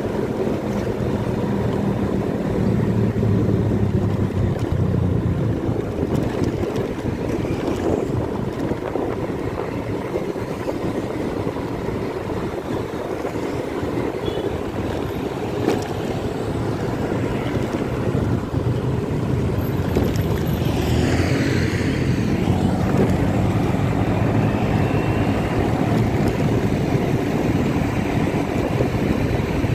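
Small motorcycle engine running steadily while riding along a city street, with wind rushing over the microphone.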